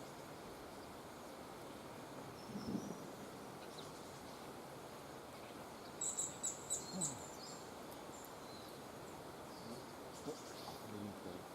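Outdoor ambience with a steady faint hiss; about six seconds in, a bird gives a quick run of five high chirps. A few short, faint low sounds come and go, one a little under three seconds in and one just after the chirps.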